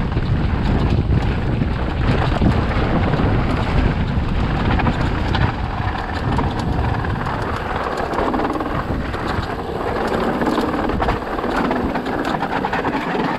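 Wind rushing over the microphone while riding a mountain bike, with a steady rumble from the tyres and a dense rattle of small knocks from the bike on a rough, rocky trail.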